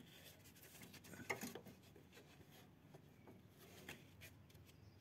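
Near silence with faint rubbing and small metallic clicks of a gloved hand turning a nut on a threaded adjuster rod of a mower's control linkage, the loudest click a little over a second in.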